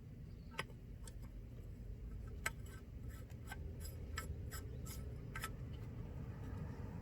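Faint, irregular small clicks and ticks of the brass anti-siphon valve's cap being threaded back on by hand, over a low steady background rumble.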